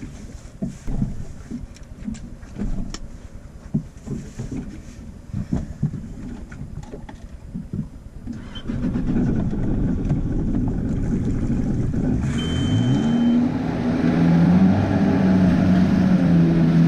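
Small boat's engine, with clicks and knocks of gear being handled over a low rumble at first. About halfway through it gets louder, then is throttled up, its note rising and then holding steady as the boat gets under way.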